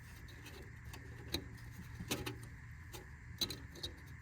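A few light, scattered clicks and taps of hands working the crankshaft position sensor's plastic wiring clip into its metal bracket, over a faint steady hum.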